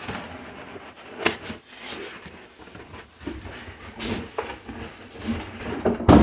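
Irregular knocks and bumps from things being handled, about half a dozen spread out, with the loudest thud near the end.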